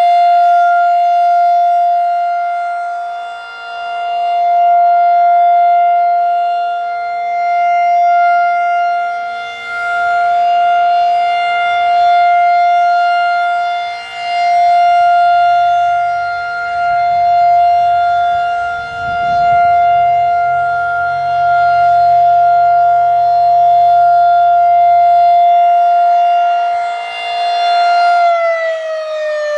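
Federal Signal 2001-DC 'Roundback' outdoor warning siren sounding a loud, steady full-alert tone. It swells and fades every few seconds as the rotating head sweeps past, then starts to wind down, falling in pitch, near the end.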